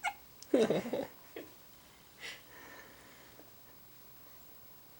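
A pet's hiccups: a short squeaky hic that falls in pitch right at the start, then a louder, longer cluster about half a second in, and fainter single hics near one and a half and two and a half seconds in.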